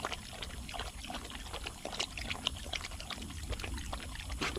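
Water being poured out for a German Shepherd to drink, trickling and splashing in many small irregular splashes as the dog drinks from it.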